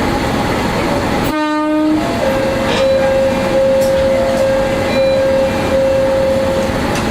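Diesel railcar running with a steady rumble, sounding one short horn blast about a second in, followed by a steady high tone held for several seconds.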